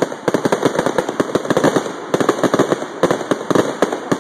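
Fireworks finale barrage: a rapid, continuous run of sharp bangs and crackles, many a second.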